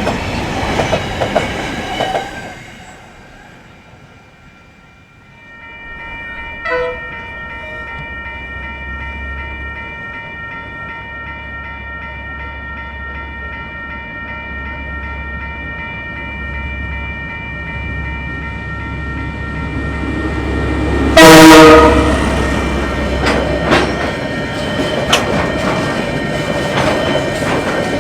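Freight wagons clattering over rail joints, then a diesel freight locomotive approaching with a deep engine rumble and a steady high tone over it. About two-thirds of the way in the locomotive gives one loud horn blast of about a second, and the train clatters on past.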